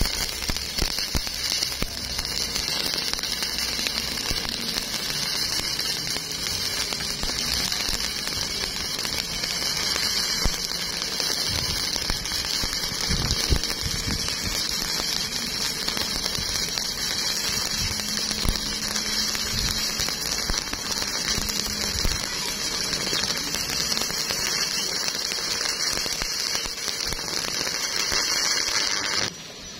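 Stick-welding arc from a flux-coated electrode burning in a deep, narrow groove weld: a steady crackle and hiss like frying or rain, which cuts off suddenly near the end as the arc is broken.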